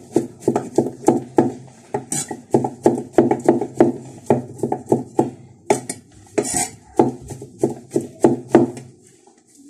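Cleaver chopping meat on a round wooden chopping board: quick, even knocks about three a second, with a short scrape of the blade now and then. The chopping stops shortly before the end.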